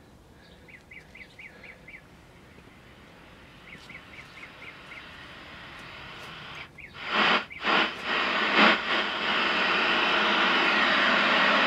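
Faint repeated chirps, then about seven seconds in the 1968 RCA Victor tube television's speaker comes up with static: a few loud bursts of hiss, then a steady rush of noise that slowly grows louder. This is the audio section reaching operating temperature as the tubes warm up, with no station received.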